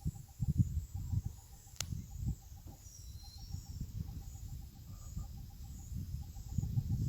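Wind rumbling on the microphone in uneven gusts, with a faint call of short, evenly spaced notes repeating in quick groups of about five, over and over. A single sharp click comes a little under two seconds in.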